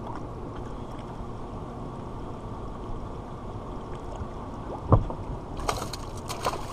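Steady wash of lake water and wind around a bass boat, with a single thump on the boat about five seconds in, followed by a brief flurry of splashing as a hooked fish thrashes at the surface beside the hull.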